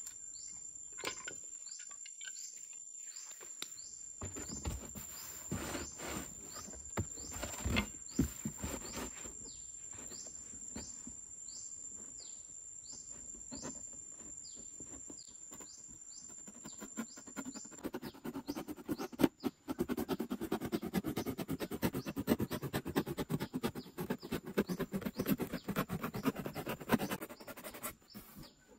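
Rapid, repeated downward-sliding chirps over a steady high whine, with scattered light knocks and handling of a cardboard box. From about two-thirds in, a louder, dense scratching and crackling takes over.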